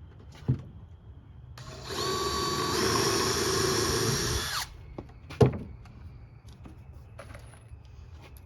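Cordless impact driver running for about three seconds, driving a screw into plywood, its whine stepping up in pitch partway through. A sharp knock comes just before it starts and a louder one shortly after it stops.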